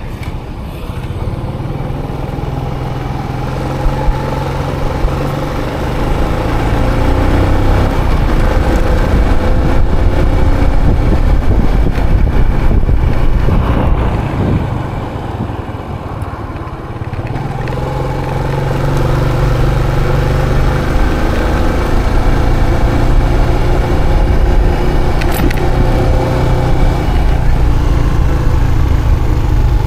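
Small motorcycle's engine running under way, with wind rushing over the action camera's microphone. The sound grows over the first several seconds as the bike speeds up, eases off around the middle, then builds again.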